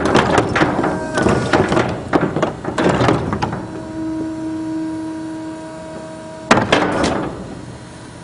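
Trash falling out of a tipped wheeled waste cart into a steel dumpster, clattering and thudding for the first few seconds. Then the Bayne cart-tipper lift's motor hums steadily. About six and a half seconds in there is one sharp bang followed by brief rattling as the lift and cart move.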